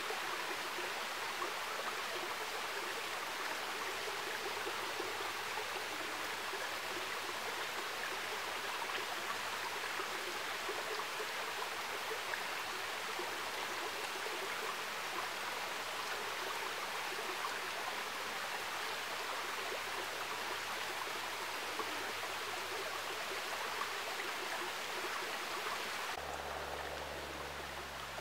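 Steady rush of a forest creek running over rocks. Near the end the sound shifts, with a faint low hum coming in underneath.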